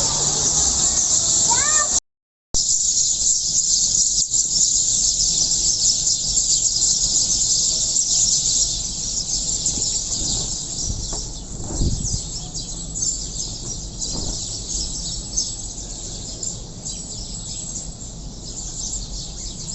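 A dense chorus of many small birds chirping steadily, with a few rising calls in the first two seconds. The sound cuts out completely for about half a second about two seconds in.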